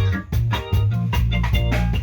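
A live band playing, with a heavy bass line, guitar and drum kit keeping a steady beat, at a sound check.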